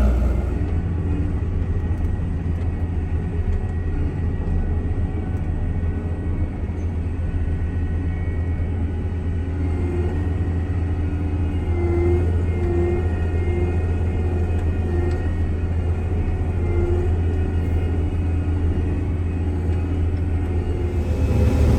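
Combine harvester running steadily while harvesting corn: an even, low engine and machine drone with faint steady whining tones above it.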